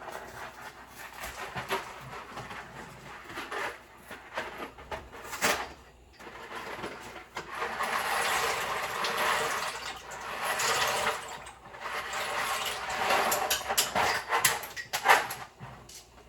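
Dry pasta poured from its cardboard box into a pot, rattling in long runs in the second half, with clicks and knocks of handling the box and pot.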